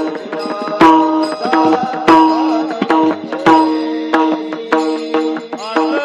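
Devotional kirtan music in an instrumental stretch: hand-drum strokes over steady held notes, with three loud strokes about a second and a half apart.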